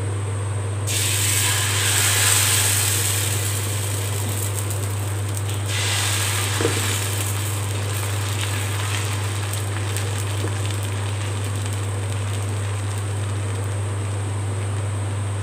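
Green gram (moong dal) dosa batter hissing and sizzling as it hits a hot dosa tawa. The sizzle starts suddenly about a second in, surges again near six seconds, then settles to a softer crackle as the batter is spread. A light knock comes just after the second surge, and a steady low hum runs underneath.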